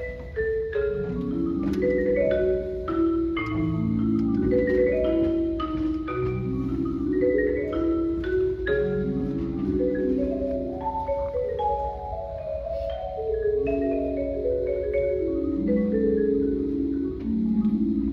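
Solo marimba played with mallets: sustained rolled chords in the low and middle register, with quicker single struck notes sounding above them.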